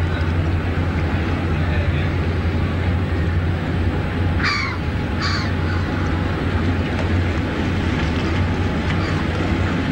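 Steady low drone of the motor ferry MV Brading's diesel engines as the ship moves past close by. A bird calls twice about four and a half seconds in, each call short and falling in pitch.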